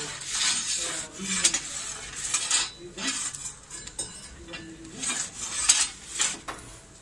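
Long metal pizza peel scraping and clinking on the floor of a wood-fired brick oven as a pizza is turned and shifted, in a run of uneven sharp scrapes, the loudest a little before the end.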